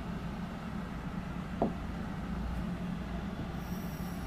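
Steady low background hum with two short, soft taps about a second and a half apart, and a faint high-pitched whine briefly near the end.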